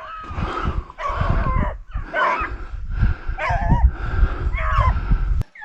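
A pack of beagles bays on a running rabbit's trail, giving short, bending, overlapping cries over and over: the hounds are on the scent. A low rumble sits underneath.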